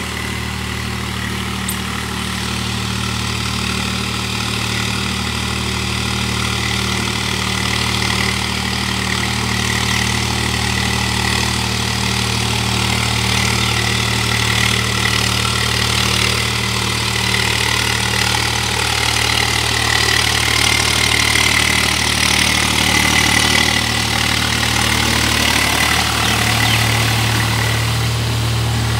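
Swaraj 735 tractor's three-cylinder diesel engine running steadily under load while its rotavator churns a flooded paddy field, with a steady high whine above the engine note. The sound grows gradually louder as the tractor draws nearer.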